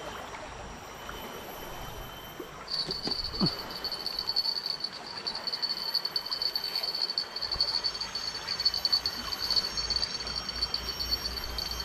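A high, steady insect call with a fast pulsing texture starts about three seconds in and keeps going, over a faint background hiss.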